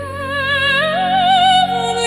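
Slow devotional song: a voice holds wordless notes with vibrato, stepping up in pitch about a second in, over a soft sustained accompaniment.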